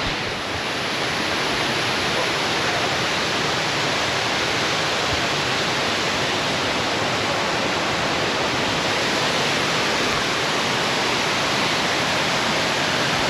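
Waterfall rushing with a steady, even sound of heavy falling water, running high after rain.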